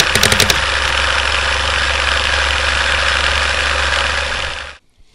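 Steady, loud mechanical rumble, like a machine running, with a quick run of about eight sharp clicks at the very start; it cuts off suddenly near the end.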